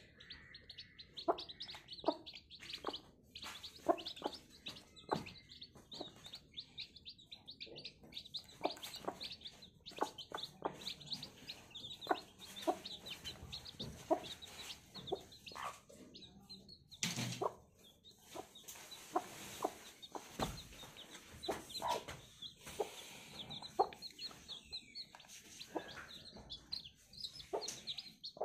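Young chicks peeping over and over in short high-pitched calls, with a hen clucking among them.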